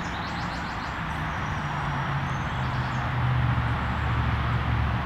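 Outdoor background hiss with a low engine hum that grows louder through the second half and stops near the end, and a bird trilling briefly near the start.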